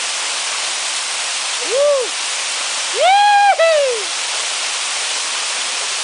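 Steady rushing of a waterfall, with a person's voice calling out twice over it: a short rising-and-falling cry about two seconds in and a longer, louder one about a second later.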